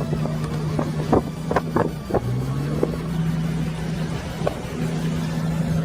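An engine running steadily, its pitch rising a little about two seconds in, with several sharp clicks or knocks during the first two seconds.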